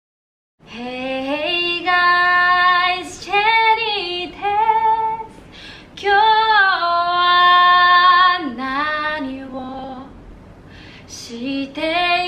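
A woman singing alone with no instruments, one voice in short phrases with long held notes, starting about half a second in.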